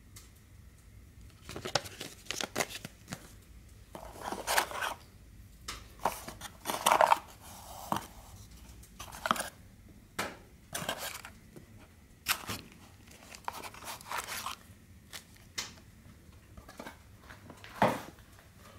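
Paper and plastic packaging rustling and crinkling as the parts of a flashlight kit are unpacked by hand, in irregular bursts with a few sharp clicks of small parts being handled.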